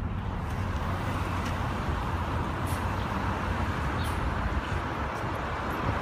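Fire engine's diesel engine running with the steady rumble of street traffic, with two brief high squeaks about halfway through.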